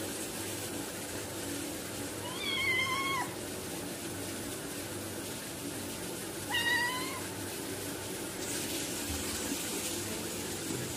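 A cat meowing twice, two drawn-out meows a few seconds apart, each a little under a second long.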